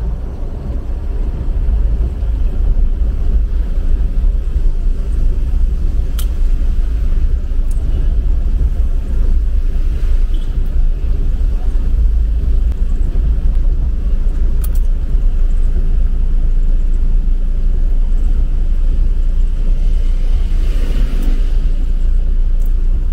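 Steady low rumble of an Isuzu Traviz light truck driving, its engine and road noise heard from inside the cab. A few faint clicks, and a brief swish near the end as the windshield wiper sweeps.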